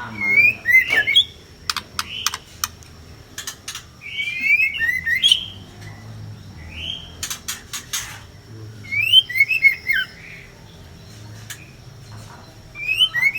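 White-rumped shamas (murai batu) calling harshly in irregular bursts of short, scratchy notes that sweep up and down, with sharp clicks and rattles among them: a female and male squabbling.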